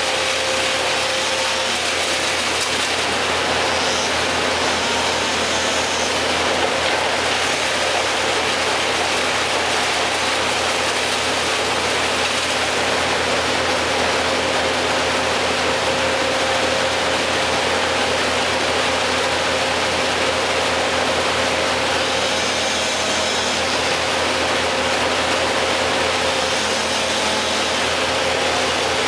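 A machine engine running steadily with a constant hum under a broad even hiss, with no change in speed.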